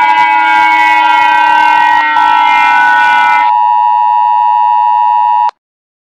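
Electronic emergency-alert alarm tones: a loud chord of steady tones sliding slowly down in pitch, with a short break about two seconds in. About three and a half seconds in it changes to a steady buzzing tone that cuts off abruptly near the end.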